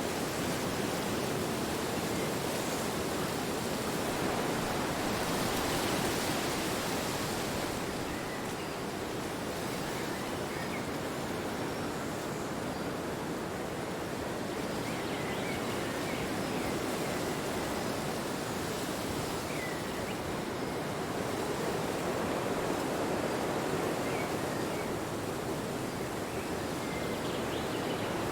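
Wind blowing: a steady rushing noise that swells a little and then eases.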